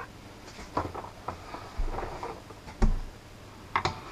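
Handling noise on a workbench: a few scattered light clicks and knocks, two of them with a dull thump.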